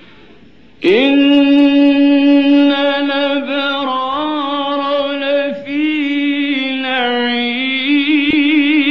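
A man's voice in melodic Quran recitation (tajweed), holding one long ornamented note that starts about a second in, with turns in pitch along the way and a wavering vibrato near the end. Faint tape hiss comes before it.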